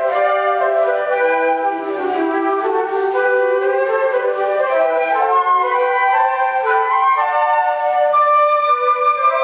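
A flute ensemble playing a piece in several parts, with held notes overlapping and moving from pitch to pitch.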